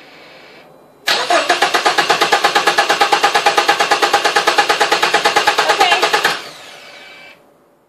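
Mazda 3 four-cylinder engine cranked over on its starter without firing, with a fast, even pulse from the cylinders' compression strokes. It starts about a second in and stops about five seconds later. The engine is being spun with the ignition and fuel pump fuses pulled so a compression gauge on cylinder two can build up its reading.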